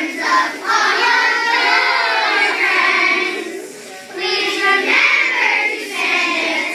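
A group of children singing together in unison, breaking off briefly about halfway through before starting the next phrase.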